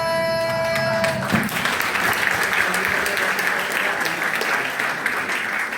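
Dance music with held tones stops about a second in, and an audience breaks into applause that carries on through the rest.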